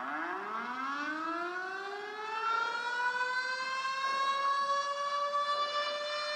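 Tornado warning siren winding up: its tone rises steadily in pitch over the first few seconds, then holds a sustained wail.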